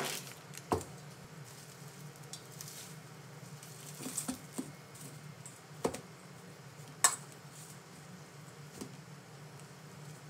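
Separate sharp clinks and taps of tableware: a ceramic ramekin set down on a stainless steel counter at the start, then a fork knocking against a stainless steel mixing bowl while mashing soft cooked kabocha, the loudest knock a little past halfway. A steady low hum runs underneath.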